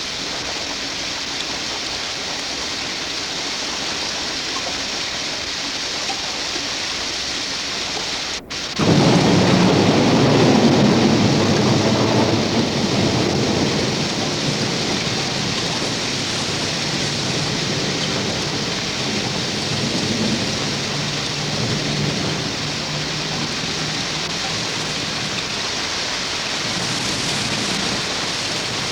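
Thunderstorm sound effect: rain falling steadily, then, after a brief dropout about eight and a half seconds in, a long peal of thunder that slowly dies away into the continuing rain.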